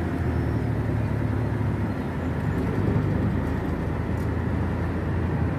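Steady low road and engine rumble of a car driving along a city road, heard from inside the car.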